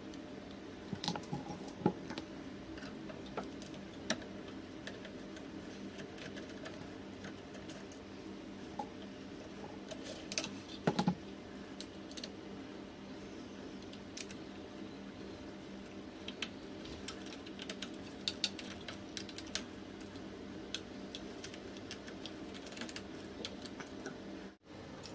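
Scattered small clicks and taps of hands handling the scooter's rear brake caliper, brake cable and fender, over a steady low hum, with a short run of louder clicks about ten seconds in.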